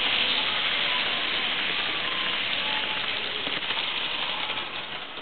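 H0-scale model train running close past: a steady rushing hiss of wheels on the rails with a few light clicks about three and a half seconds in, fading near the end as the train goes by.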